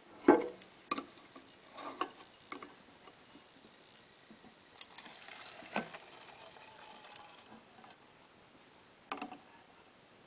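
Acetone being poured from a metal can into a small plastic bottle: light clicks and knocks as the can and bottle are handled, with a faint trickle of liquid about five seconds in.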